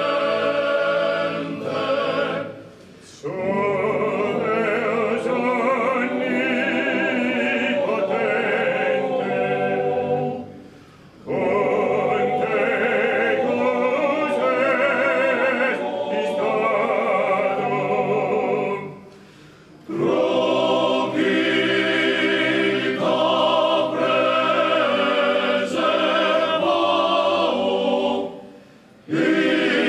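Choral singing of classical sacred music in long phrases, with a short pause between phrases about every eight seconds.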